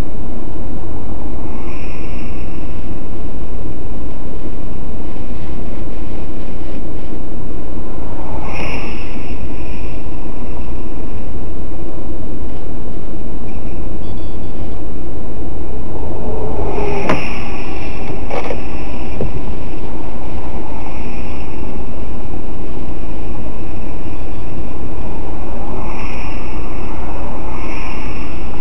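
Steady, loud rumbling noise inside a stationary car, picked up by a dashcam microphone, with a single sharp click about seventeen seconds in.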